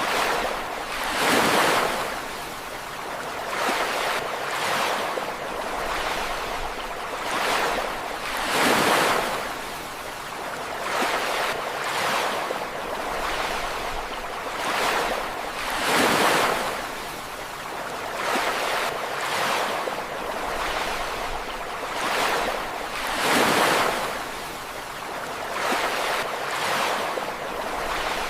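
Ocean waves breaking and washing onto a beach. The biggest waves surge about every seven to eight seconds, with smaller ones between.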